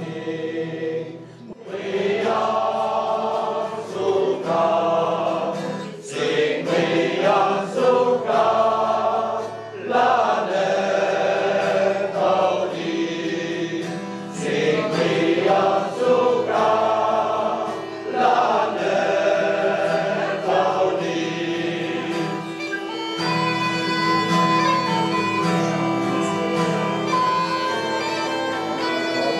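Mixed choir of men and women singing a Béarnais folk song in phrases with short breaths between them. About three-quarters of the way through, a bagpipe takes over with a steady drone under a reedy melody.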